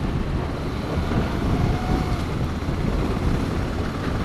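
Motorcycle riding along, its engine and road noise mixed with wind rushing over the microphone in a steady low rumble.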